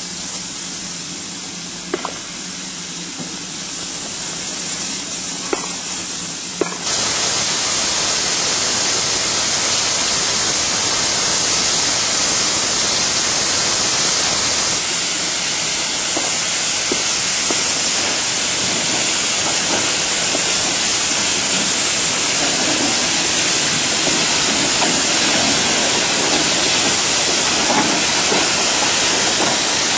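Steady hiss of steam escaping at the cylinders of an industrial saddle-tank steam locomotive. A low steady hum and a few faint clicks sit under it for the first seven seconds; after that the hiss is louder.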